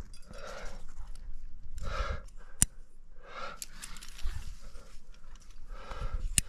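A rock climber breathing hard, with heavy breaths about every second and a half while working up the route. Two sharp clicks, about two and a half seconds in and near the end.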